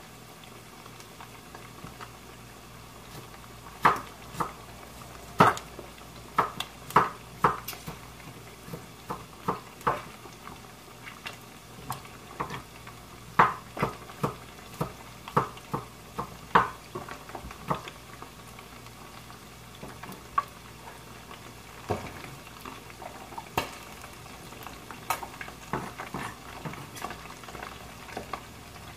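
Chef's knife chopping red onion on a wooden cutting board: sharp irregular knocks, some in quick runs of several, then pauses. A steady frying sizzle runs underneath.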